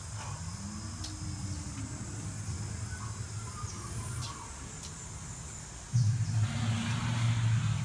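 Faint outdoor insect and bird sounds over a low steady background, then about six seconds in a loud, low growl starts suddenly: a dinosaur sound effect played from an animatronic exhibit's speakers.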